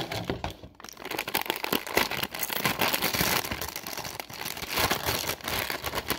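Clear plastic bag crinkling and rustling as hands open it and reach inside, starting about a second in and going on irregularly.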